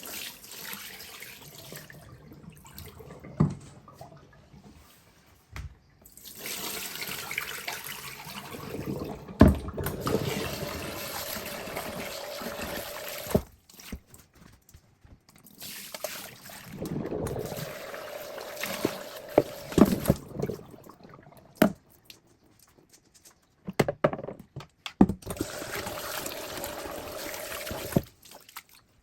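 Water running from a tap into a sink in three stretches of several seconds each, with sharp knocks and clatter between them, as when something is rinsed under the tap.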